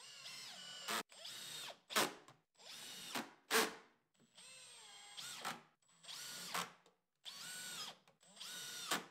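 Makita cordless drill boring into pine boards in about seven short bursts of roughly a second each. The motor whine rises as it spins up, and several bursts end in a sharp knock.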